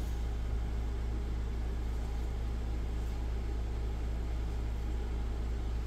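Steady low background hum that holds at one level, with faint even hiss above it and no distinct events.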